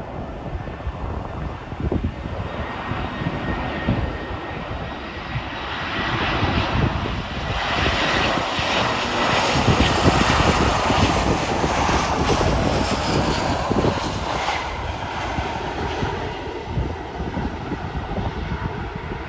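Twin jet engines of an easyJet Airbus A320-family airliner rushing as it comes in low on final approach to land. The sound is loudest about halfway through as it passes closest, then fades with a slight falling pitch as it rolls away down the runway. Gusty wind buffets the microphone throughout.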